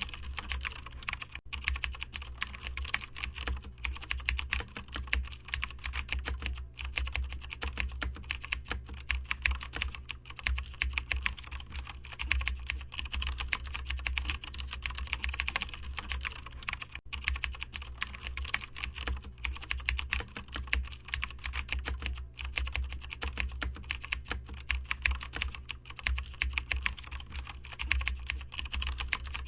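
Continuous typing on a computer keyboard, a dense run of irregular key clicks, over a steady low hum.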